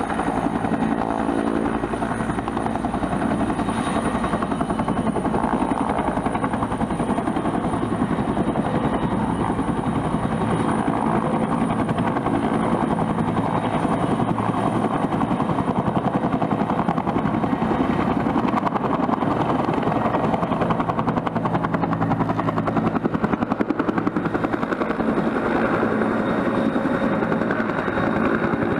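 Bell 212 helicopter running steadily: the fast, even beat of its two-bladed main rotor, with the thin high whine of its twin turboshaft engines over it.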